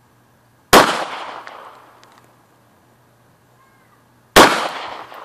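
Two 9mm Hi-Point pistol shots about three and a half seconds apart, each followed by an echo that dies away over about a second.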